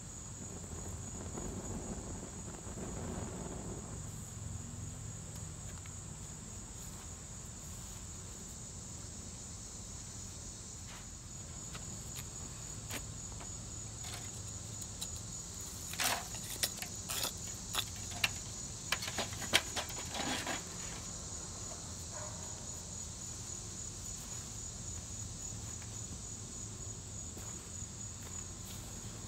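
Insects chirring steadily in a high, even buzz. About halfway through comes a short cluster of sharp scrapes and knocks as burning tinder is scraped off a wooden stump with a wooden stick into a metal fire basket.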